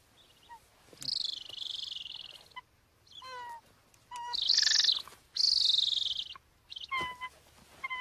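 Trapped golden eagle calling: long high-pitched calls about a second in and again from about four seconds, with short, lower yelping notes in between and near the end.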